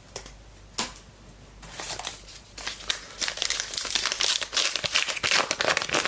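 A trading card pack's wrapper being torn open and crinkled by hand, a dense crackling that starts about two seconds in, after a single click.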